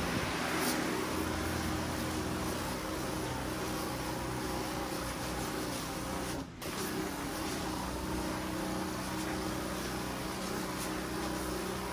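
Disinfectant sprayer running steadily: a motor or pump hum under a continuous hiss of spray. It cuts out briefly about halfway through.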